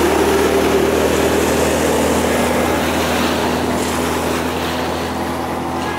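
Outboard motor of a small aluminium launch running steadily, with wind and water noise; it slowly gets quieter over the last few seconds.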